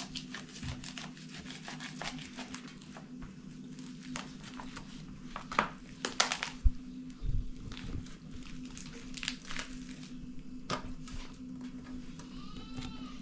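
A whole raw chicken being cut up with a knife on a pan: scattered clicks and taps of the blade against the pan, with some crinkling, loudest around the middle. A steady low hum runs underneath.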